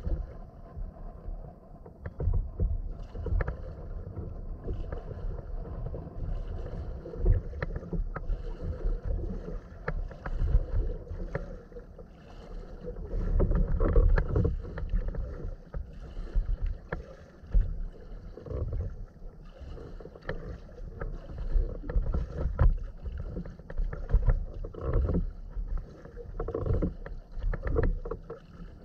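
Kayak paddling: the paddle blades dip and splash in uneven strokes, and water sloshes and laps against the hull.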